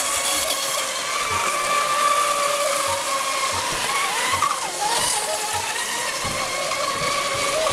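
Several Mono II class RC racing monohull boats running flat out, their motors giving a steady high whine that bends up and down in pitch about four to five seconds in as the boats turn round the buoys.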